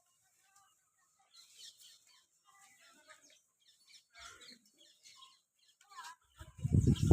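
Small birds chirping faintly on and off. Near the end a loud, low call from farm livestock begins.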